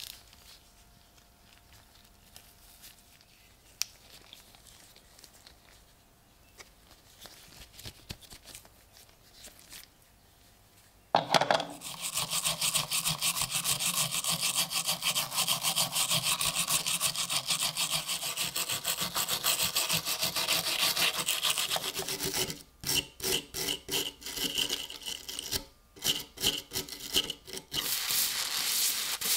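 Rapid back-and-forth hand scraping on the rusty knife's metal, starting suddenly after a stretch of faint clicks and handling, then breaking into short separate runs of strokes near the end.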